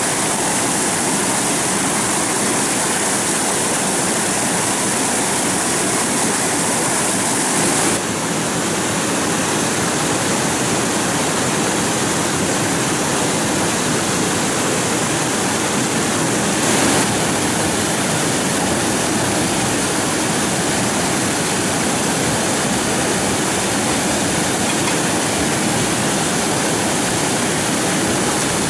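Steady rush of flowing water, a loud even hiss with no let-up. The sound shifts slightly about eight seconds in, and there is a brief louder surge a little past halfway.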